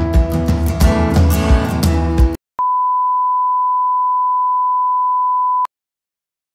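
Background music with a steady beat cuts off about two seconds in. Moments later a single steady test-tone beep, the kind played with television colour bars, sounds for about three seconds and stops abruptly.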